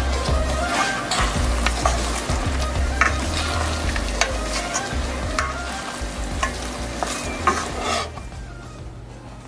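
A pan of creamy bacon-and-cheese pasta sauce sizzling as it is stirred with a wooden spatula, with irregular scrapes and knocks of the spatula against the pan. The stirring sound stops about eight seconds in.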